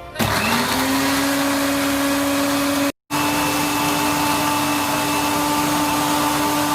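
Electric blender motor spinning up with a rising whine, then running steadily at high speed. About three seconds in it cuts out abruptly for a moment and comes back at a slightly higher pitch.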